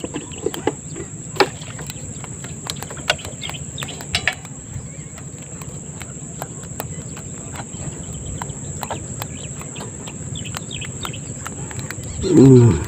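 Steady high-pitched insect chorus over a low outdoor rumble, with scattered sharp clicks and knocks. A short voice sound comes near the end.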